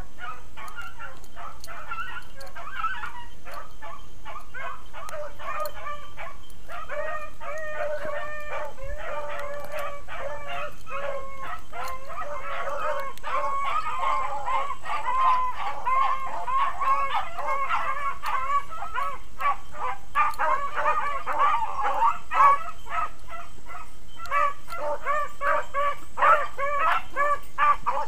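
A pack of beagles baying together while running a rabbit on its scent. Many overlapping calls sound throughout and grow denser and louder from about halfway through, as the pack gives tongue on the track.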